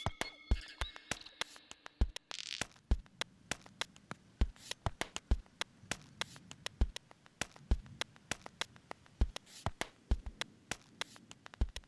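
Sparse electronic music: irregular sharp clicks over low kick-drum thumps about once a second, with a short hissing swell about two and a half seconds in and another near the end.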